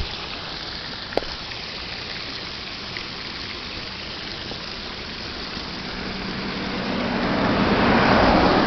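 Steady rush of water from a man-made waterfall, with a passing vehicle's engine swelling up about seven seconds in and peaking near the end.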